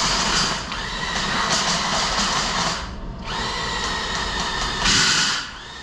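Drill spinning a RIDGID PowerSpin drain-cleaner cable with a chain on its end inside a steel Jeep frame rail, the chain rattling against the inside walls to knock rust and scale loose. It runs in two long spells with a brief let-up about three seconds in.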